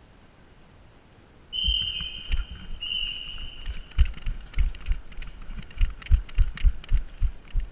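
A high steady tone sounds for about two seconds, then running footsteps come in as heavy thuds, about three a second and quickening near the end.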